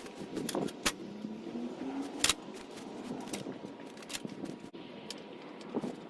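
Scattered light clicks and knocks of tools and wood being handled, with two sharper clicks about one and two seconds in.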